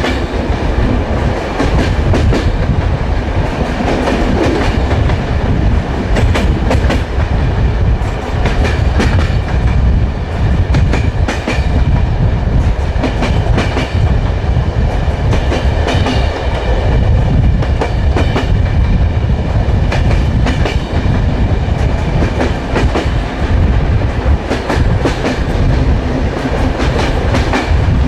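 Train wheels running on the rails: a steady low rumble with repeated clickety-clack as the wheels cross rail joints.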